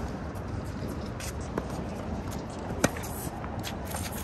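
Tennis ball hit with a racket during a rally: one sharp pop about three seconds in, with a fainter tick a little earlier, over a steady low outdoor rumble.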